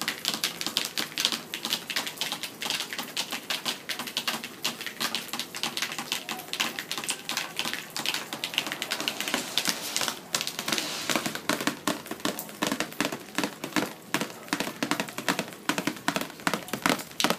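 Rain falling on a sheet of watercolor paper: a dense, fast patter of drops striking close by.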